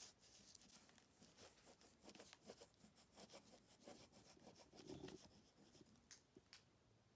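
Faint, irregular scratching of a wax crayon rubbed back and forth over paper laid on a leaf, making a leaf rubbing.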